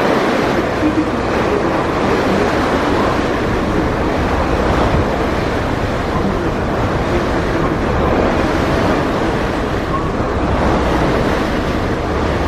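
Steady wind noise on the microphone mixed with the low rumble and water wash of a Mersey ferry under way.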